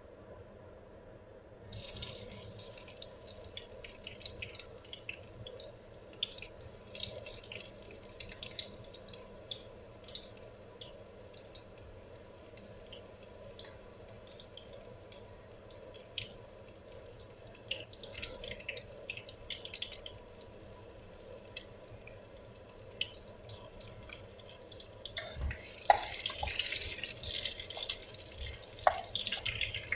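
Diced onion sizzling in hot oil in a pot, with scattered crackles and pops that start abruptly about two seconds in. Near the end the frying grows denser and louder as a wooden spatula stirs the onion, knocking and scraping against the pot.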